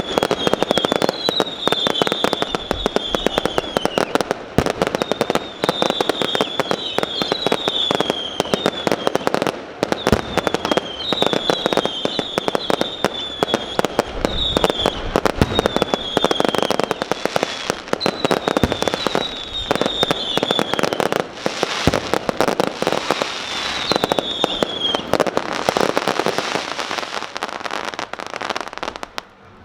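Fireworks going off in a dense, continuous crackle of pops and bangs, with high whistling tones that fall in pitch, repeating every second or so. The crackle drops away abruptly at the end.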